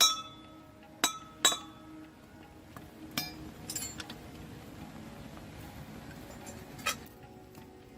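Metal clinking: about five sharp strikes of tools against metal parts, each with a short ring, two close together near the start and a last one near the end.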